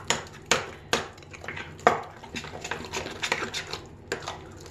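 A utensil stirring a thick lentil, yogurt and dill mash in a glass bowl, clinking and scraping against the glass in irregular strokes, with the loudest knock about two seconds in.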